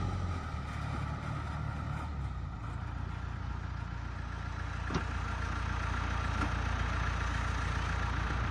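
Small crawler bulldozer's diesel engine running steadily, with a single light click about five seconds in.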